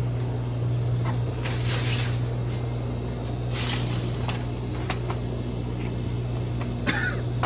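A steady low hum with a few short bursts of hissing noise over it.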